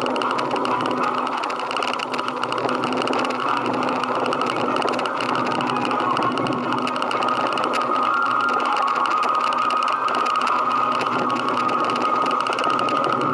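Motorcycle engine running steadily without a break.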